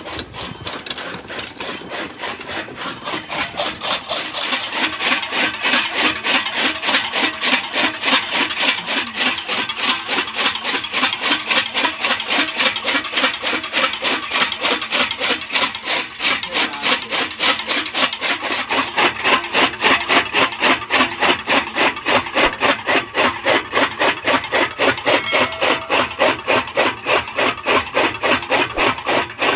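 Bullock-driven chaff cutter chopping green fodder stalks, a rapid, even crunching of about four cuts a second, louder from about three seconds in as the fodder is fed through.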